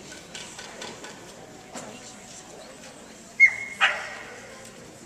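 Border collie barking twice in quick succession about three and a half seconds in, a short high yip and then a fuller bark, over the low murmur of a crowded hall.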